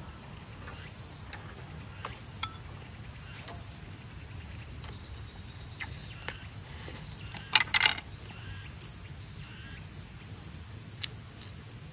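Eating at a camp table: short clicks of chopsticks and spoon against an earthenware bowl and dishes, with a louder burst of clicks about seven and a half seconds in. Insects chirp steadily and high in the background.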